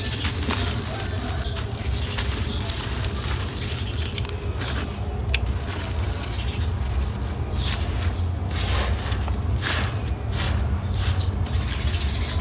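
Dry, gritty blocks of sandy, stony soil crushed and crumbled in bare hands: a continuous crunching and crackling of grit, with grains and small stones pattering down, over a steady low rumble.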